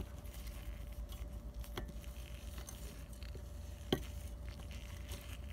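Small metallic clicks from a homemade valve spring compressor being backed off on a Subaru EJ22T cylinder head, letting the valve spring retainer rise onto the keepers. One sharper click about four seconds in. A faint steady hum runs underneath.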